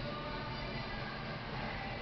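Background music over steady room noise.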